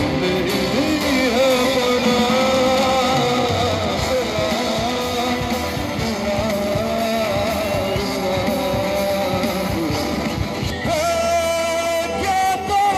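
A live rock band playing through a PA: a man singing into a microphone over electric and acoustic guitars, keyboard and drums.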